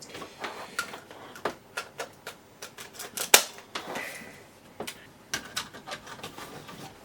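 Irregular plastic clicks and knocks from a Sony CCD-TR2000E Hi8 camcorder and its plug-in power supply being handled, with one louder knock about three seconds in.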